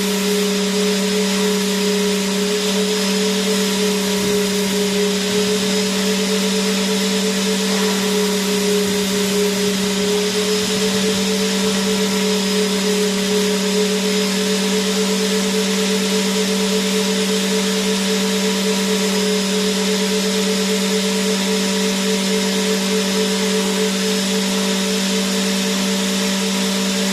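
Vacuum cleaner running continuously: a steady motor hum over a wide rushing hiss, with no change in pitch or level.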